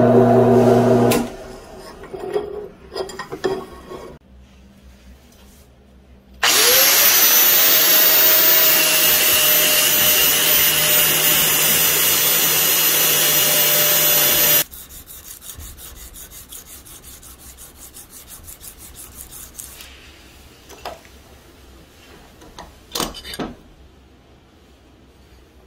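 An angle grinder spins up with a rising whine about six seconds in, grinds the edge of a bearing-steel knife blade steadily for about eight seconds, then cuts off suddenly. Before it, a drill press boring through the steel stops about a second in. After it comes faint rhythmic rubbing and a couple of sharp knocks.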